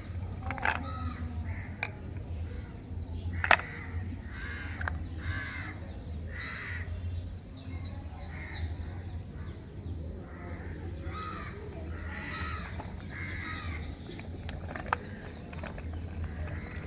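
Harsh bird calls repeating every second or so, with a low steady hum underneath and a few sharp clicks; the loudest moment is a click about three and a half seconds in.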